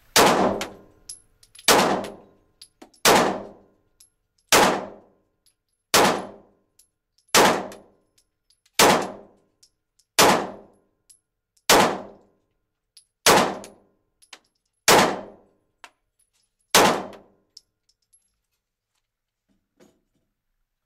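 Glock 19 9mm pistol fired twelve times at a steady pace, about one shot every second and a half, each shot ringing out in the reverberant indoor range. The shooting stops about three seconds before the end, leaving a few faint clicks.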